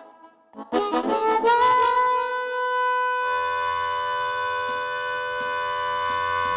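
Song intro: a harmonica holds one long note that bends up at its start, and a low bass note joins partway through under a few light ticks.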